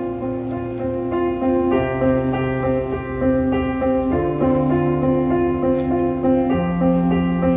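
Slow keyboard intro of a song played for a dance routine: held chords over a bass note that steps up about every two seconds.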